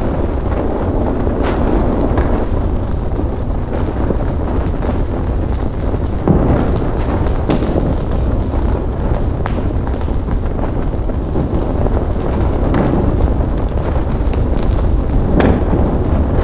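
Large fire burning: a steady low rumble of flames with many scattered crackles and pops.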